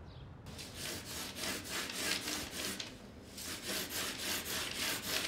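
Hand saw cutting through wood in quick back-and-forth rasping strokes, starting about half a second in and pausing briefly about three seconds in before carrying on.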